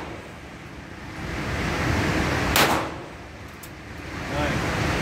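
A single gunshot about two and a half seconds in, then a faint tick a second later. The steady background noise drops away right after the shot and swells back over about a second.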